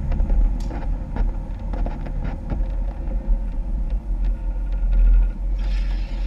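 Off-road Jeep engine running with a low, steady rumble, along with scattered knocks and rattles. A short hiss comes in near the end.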